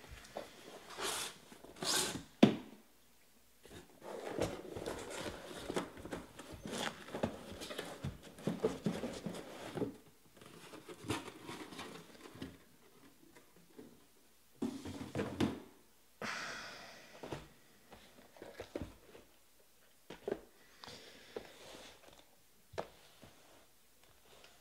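Cardboard trading-card boxes being handled: a taped shipping case opened and shrink-wrapped hobby boxes lifted out and set down, with irregular rubbing and scraping of cardboard and plastic wrap and a few sharp knocks as boxes touch the table.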